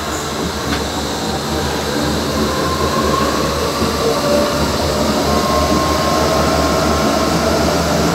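Hamburg DT3-E U-Bahn train running through a tunnel, heard from the driver's cab: a steady rumble of wheels and running gear that grows gradually louder, with a faint high whine coming and going.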